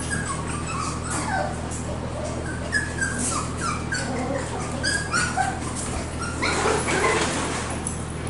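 Cockapoo puppies yipping and whimpering in play, many short high squeals falling in pitch, with scrabbling clicks and a louder rustling scuffle about six and a half seconds in.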